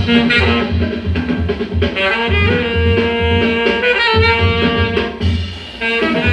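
Music: a saxophone playing long held notes over a pulsing low bass line.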